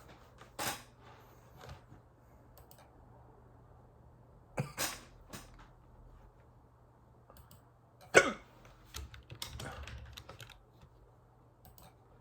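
A person hiccuping: three sharp hiccups roughly four seconds apart, the loudest about two-thirds of the way in, with fainter catches of breath between.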